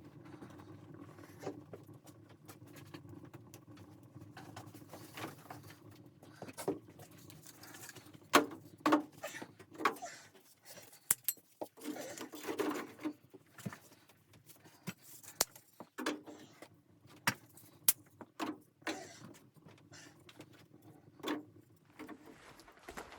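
Irregular light clicks and knocks with no steady rhythm, thickest and loudest from about eight to thirteen seconds in, over a faint steady hum.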